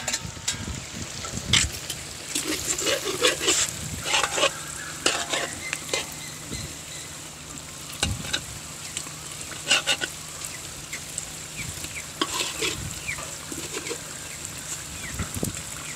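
Fried catfish sizzling in hot oil and chili paste in a large metal wok, with a slotted metal spatula stirring and scraping against the pan in irregular strokes.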